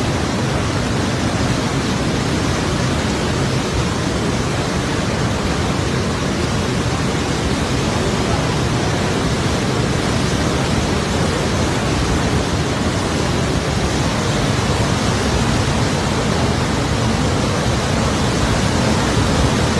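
The flooded Parvati River's water rushing past as a loud, steady, unbroken noise.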